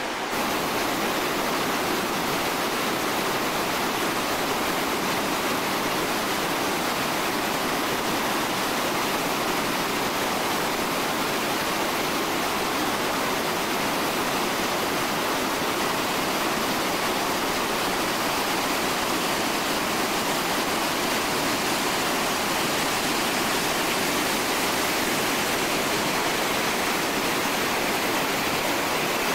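Whitewater rapid rushing over boulders: a steady, dense hiss of churning water with no letup.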